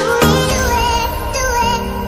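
Background music: a high, wavering sung or synthesized melody over sustained electronic tones, with the beat dropping away about half a second in.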